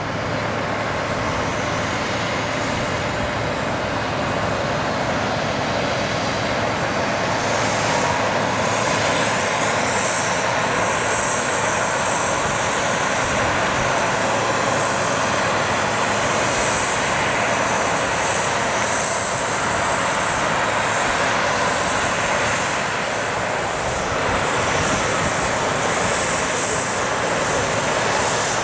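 Bombardier CRJ-900 regional jet landing and rolling out on the runway, with the steady noise of its rear-mounted GE CF34 turbofans. A high whine rises in pitch over the first several seconds, then holds as a steady high whine.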